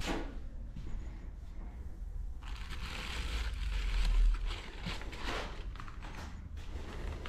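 Clear polythene wrapping and crumpled paper rustling and crinkling as hands pull a paper wad out of a wrapped package, starting about two and a half seconds in, with handling bumps around the middle.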